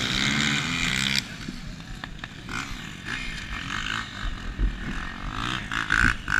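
Dirt bike engine running steadily, heard from the rider's helmet camera, that drops away suddenly about a second in; after that only a quieter low engine sound and a few sharp clicks remain.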